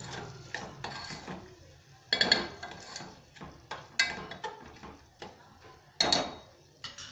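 A metal spoon stirring a thick curry of green pigeon peas and tomato in a metal pot, scraping round the pot and knocking against its sides. Several sharp clinks, the loudest about two and six seconds in.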